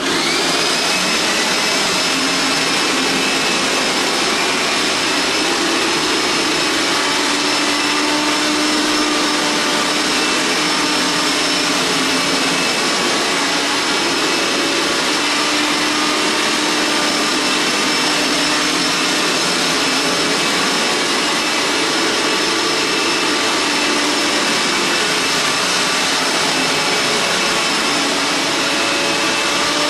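Hoover carpet shampooer's motor switching on with a quick rising whine, then running steadily with a loud whirring hum and a high, even whine.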